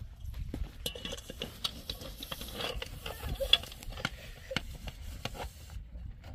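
Dishes being washed by hand in a metal basin: glasses and metal ware clinking, knocking and scraping against each other. The small clinks come in a run from about a second in, the sharpest one ringing near the middle.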